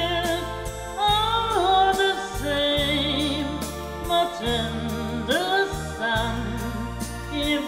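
A woman singing solo over a recorded backing track, holding and bending long sung notes above steady low accompaniment.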